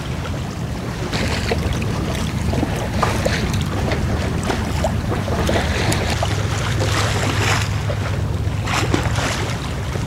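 Sailing yacht under sail: wind buffeting the microphone in a steady low rumble, with water rushing and splashing along the hull in scattered crackles.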